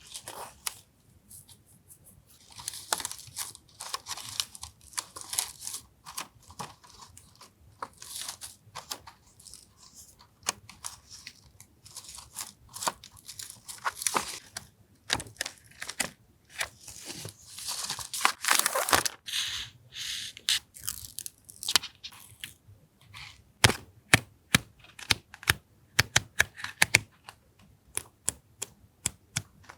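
Paper and sticker sheets being handled up close: rustling, crinkling and tearing of paper. In the last third this gives way to a run of quick, sharp light taps and clicks.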